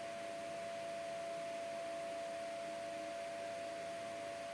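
A steady tone at one even pitch, unchanging throughout, over a faint background hiss.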